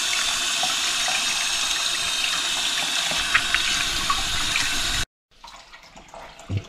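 Kitchen faucet running steadily into a stainless steel sink as fish are rinsed under the stream, with small splashes and knocks. The water sound cuts off abruptly about five seconds in, followed by faint knocks.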